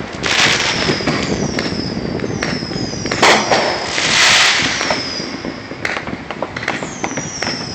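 A fireworks display: a continuous din of distant bursts and crackling, with a sharp bang about three seconds in followed by a crackling hiss. Short falling whistles come again and again, more of them near the end.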